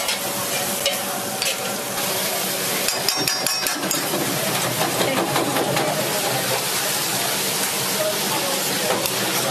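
Fish pieces frying in a sauté pan on a commercial gas range, a steady sizzle, with a quick run of metal clicks about three seconds in.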